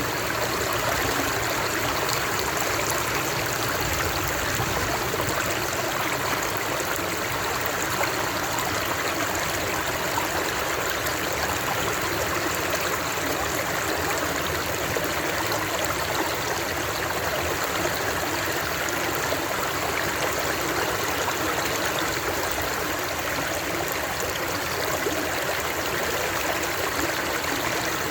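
Running water flowing steadily, an even rushing and splashing that does not change.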